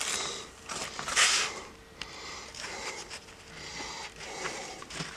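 Fabric zip-around tool kit case being opened and handled: a brief louder swish of cloth about a second in, then faint rustling and small handling sounds.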